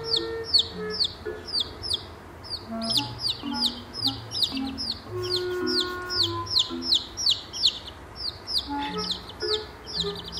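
Chicks peeping without pause, several high peeps a second, each sliding down in pitch.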